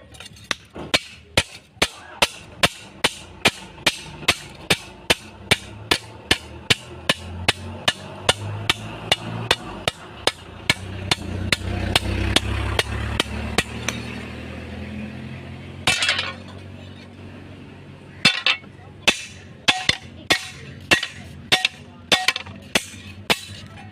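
Blacksmith's hammer striking hot metal on an anvil in a steady rhythm, about two blows a second. The blows pause briefly midway, then start again.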